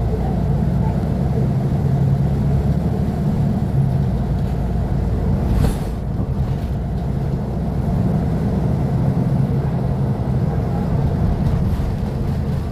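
Mercedes-Benz O500U city bus's Euro 5 diesel engine running with a steady low drone. There is a brief sharp knock about five and a half seconds in.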